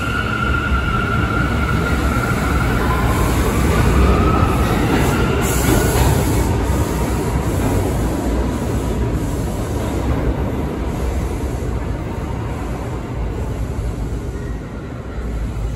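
New York City Subway A train pulling out of an underground station: wheels rumbling on the rails, with a rising whine as it picks up speed a few seconds in. The sound fades as the train recedes down the tunnel.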